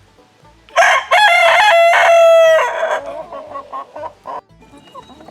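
A rooster crows once, about a second in: a loud crow of about two seconds that ends on a long held note. Softer clucking follows.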